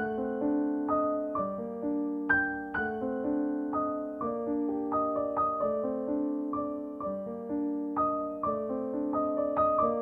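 Background piano music: a slow melody of struck notes that ring and fade, several overlapping at a time.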